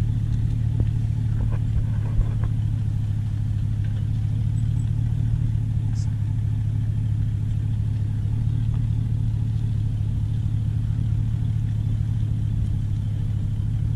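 Steady low drone of a pickup truck towing a trailer at constant speed: engine and road noise, unchanging.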